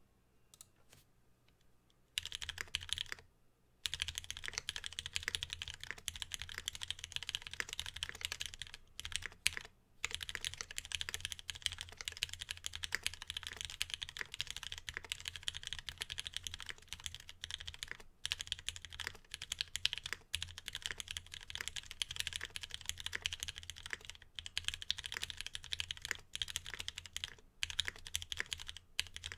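Fast continuous typing on a Geon Works F1-8X custom mechanical keyboard, with lubed Cherry Retooled Black linear switches on an aluminum plate and ABS keycaps. The typing starts about two seconds in and breaks off briefly a few times.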